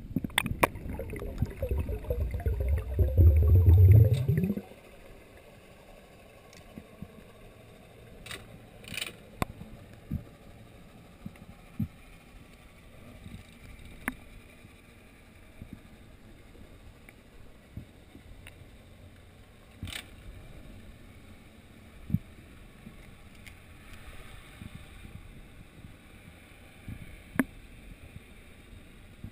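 Underwater sound picked up through a GoPro's sealed dive housing. It opens with about four seconds of loud low rushing and bubbling water, which stops suddenly, then turns to a faint underwater hiss broken by scattered single sharp clicks.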